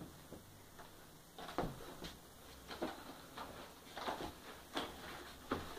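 Plastic parts of an Imaginext toy fire station clicking and knocking as they are handled and moved, several irregular clicks.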